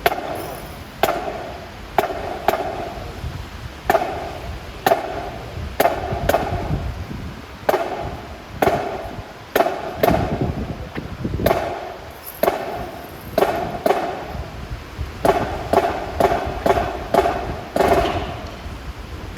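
Marching band drums striking a sparse beat, about one sharp hit a second with some hits doubled, each with a short ringing tone.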